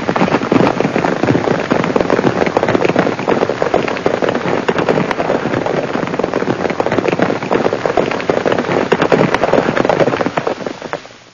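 A small herd of horses galloping on dry, hard ground: a dense, irregular clatter of many hoofbeats that fades out near the end.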